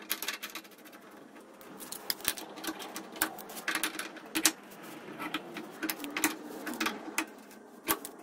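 Hand tools working a brass fitting into the metal body of a generator's propane/natural-gas conversion regulator: irregular sharp metallic clicks and small scrapes as pliers grip and turn the fitting.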